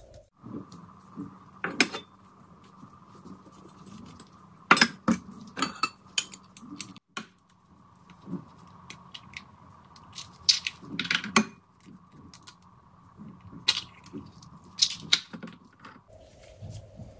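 Kitchen clatter as ingredients go into a glass mixing bowl: sharp clinks and knocks of ceramic dishes and utensils against glass, eggs among them cracked into the bowl, scattered irregularly over a faint steady hum.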